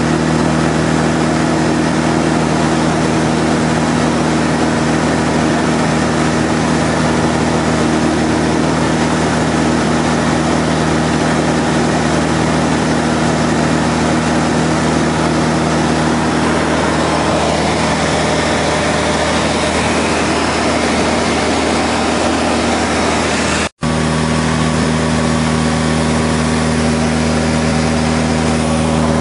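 Van's RV-6 light aircraft's piston engine and propeller droning steadily in cruise, heard from inside the cockpit. The pitch holds constant, with a split-second break in the sound late on.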